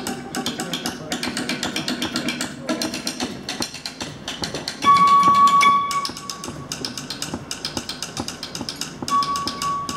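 Live rock band playing a quiet instrumental passage: a quick, steady ticking percussion rhythm under electric guitar, with a held high guitar note about halfway through and again near the end.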